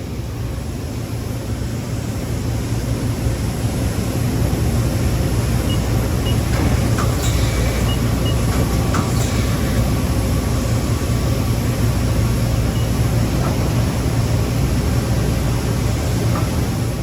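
Mori Seiki SL-65 CNC lathe running with a steady low machine drone. It grows louder over the first few seconds, then holds level, with a few faint clicks in the middle.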